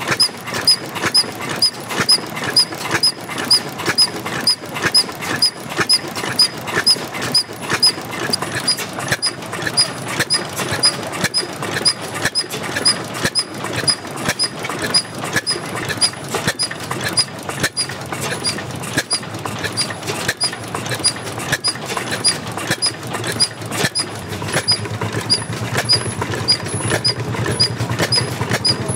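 Old stationary engine running at a slow, even beat, about two and a half strokes a second, with a short high squeak on each stroke.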